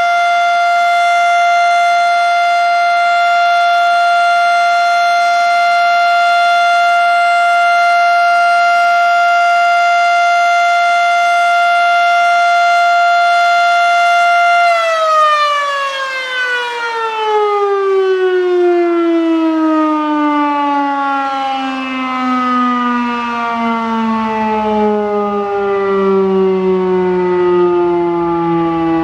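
Federal Signal Model 7 electromechanical siren sounding its steady alert tone, then switched off about halfway through and winding down, its pitch falling slowly as the rotor coasts.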